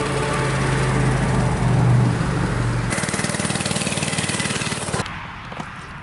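Small engine of a homebuilt mini bike running as it is ridden, rising in pitch about two seconds in, then fading over the last second.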